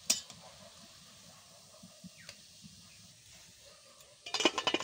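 Metal slotted spoon clinking against a metal frying pan and pot while fried fritters are lifted out of the oil: one sharp clink at the start, then a quick run of clinks near the end.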